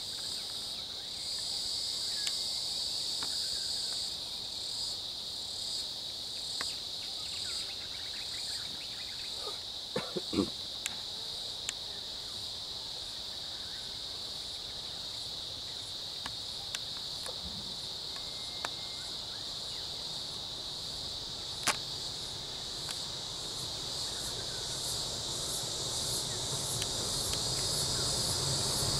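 Steady, high-pitched insect chorus running throughout, with a faint pulsing in its upper part. A few sharp clicks stand out, and a low rumble grows louder near the end.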